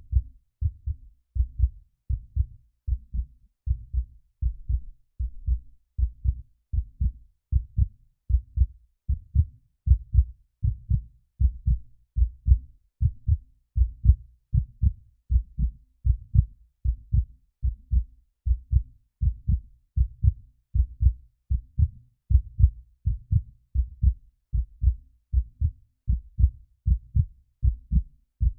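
Heartbeat sound effect: a steady, even rhythm of deep paired lub-dub thumps with no other sound.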